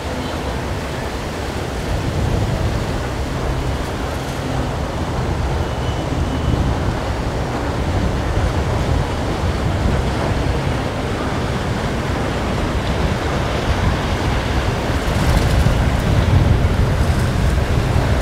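Steady wind rumble on the microphone over the rushing wash of boat wakes on the water, getting a little louder near the end.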